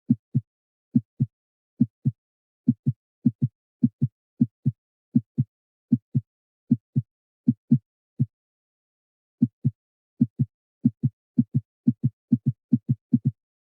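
Heartbeat, paired lub-dub thumps at about 80 beats a minute. After about eight seconds it stops for a second, then comes back faster and keeps quickening toward the end.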